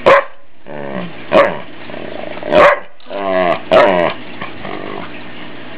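Australian shepherd barking four times in short, sharp barks. Between the barks it makes lower, drawn-out growly grumbles, playful protest at being teased.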